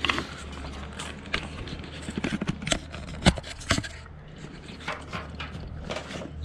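Handling noise from a battery charger's cord and plug being plugged in: scattered clicks, taps and scrapes, with one sharper knock about three seconds in, over a steady low hum.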